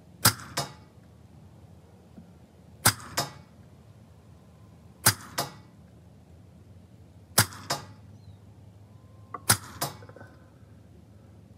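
AEA HP SS semiautomatic PCP air pistol in .25 calibre fired five times, about two and a half seconds apart. Each sharp report is followed about a third of a second later by a fainter second crack.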